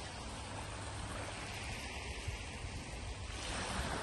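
Sea waves washing on a shingle beach, with wind rumbling on the microphone; the wash swells louder near the end.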